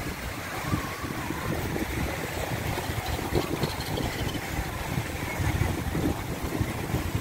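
Gusting wind buffeting the microphone, over the wash of a choppy sea on the shore.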